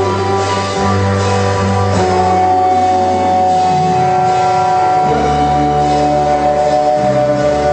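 Live psychedelic art-rock band playing, with electric guitar and bass holding sustained chords and a long held high note. The bass line shifts about five seconds in.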